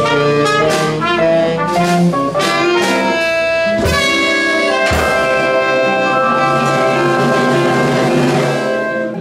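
Swing jazz band, led by trumpet and saxophone over piano, upright bass and drums, playing the closing phrase of a tune. After two drum hits about four and five seconds in, the band holds a long final chord that stops near the end.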